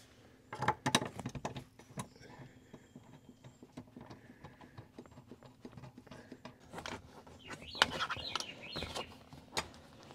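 Scattered light knocks and clinks of hands handling bolts and tools at a Jeep Wrangler's rear-seat floor mounts, busiest about a second in and again near the end.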